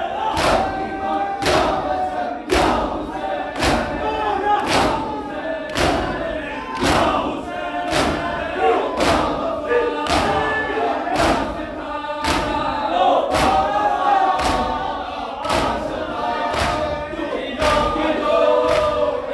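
A crowd of Shia mourners doing matam: men chanting a noha together while striking their chests with open hands in unison, a sharp slap about once a second in time with the chant.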